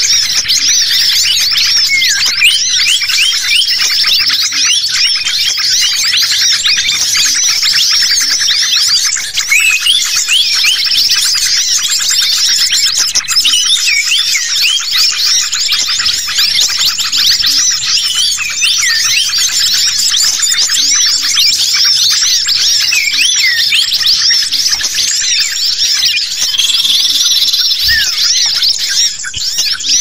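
Bird-lure recording of many small songbirds calling at once, led by agitated common iora calls: a dense, unbroken chatter of rapid high-pitched chirps and short whistled glides overlapping each other.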